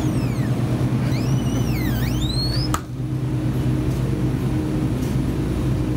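Steady low mechanical hum of a supermarket's refrigerated display cases. Over the first half, high-pitched squeaks rise and fall in pitch, and they stop abruptly about three seconds in.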